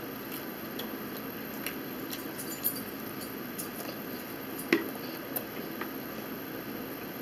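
Close-up eating sounds of people chewing saucy orange chicken wings, with scattered light clicks of metal forks against plastic bowls over a steady hiss; the sharpest click comes a little under five seconds in.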